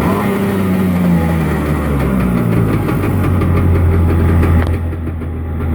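Yamaha 701 (62T) two-stroke twin jet-boat engine with dual carburetors running out of the water, revving up and easing back around a fast idle, with a brief dip in revs near the end. It is being run dry, with no cooling water hooked up.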